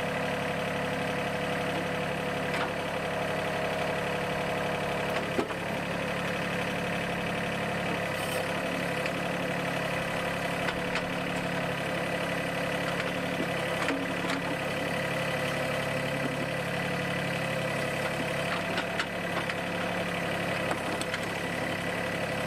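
Mahindra 1626 compact tractor's diesel engine running steadily, its tone shifting slightly about five seconds in.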